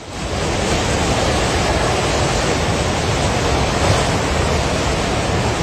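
Rushing floodwater in a torrent, a loud, steady rush of noise that does not let up.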